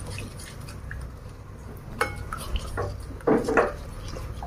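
A wooden spoon stirring a thin, watery spice marinade in a ceramic bowl, with a few knocks and scrapes against the bowl, the loudest about three and a half seconds in.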